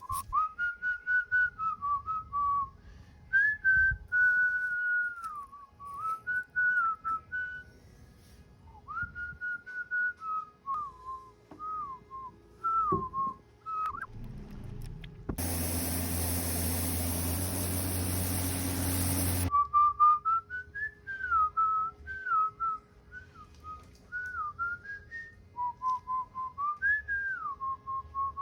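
A person whistling a wandering tune, one clear note sliding up and down in short phrases. About halfway through, a machine runs for about four seconds, a loud hiss over a low hum that starts and stops abruptly.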